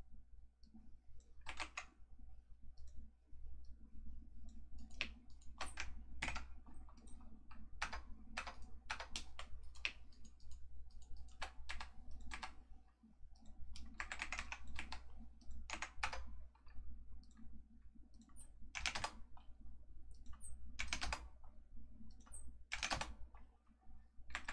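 Computer keyboard keys and mouse buttons clicking irregularly, in single presses and short quick runs, over a faint low steady hum.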